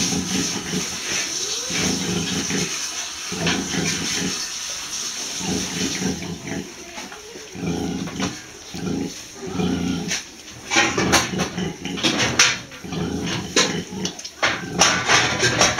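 Nursing sow grunting low and rhythmically, about once a second, the steady grunting a sow makes while her piglets suckle. From about ten seconds in, many short high squeaks and clicks from the newborn piglets jostling at the teats join it.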